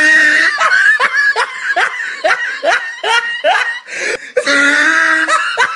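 A person laughing hard in a quick run of short 'ha' bursts, about three a second, breaking into a longer drawn-out laugh near the end.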